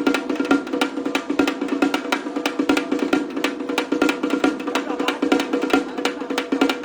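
Drums played in a fast, dense rhythm of sharp strikes, with a steady low tone underneath, as a folk band's sound check.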